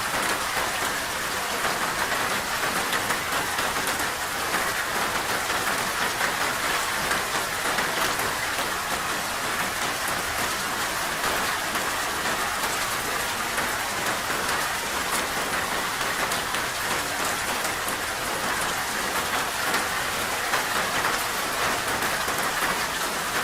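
Steady rain falling: an even hiss with many fine drop ticks, unchanging throughout.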